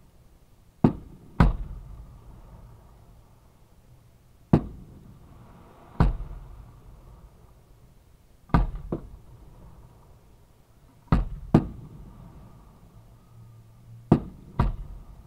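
Aerial fireworks going off at close range: about ten sharp booms, mostly in pairs about half a second apart, each trailing off in a short echoing rumble.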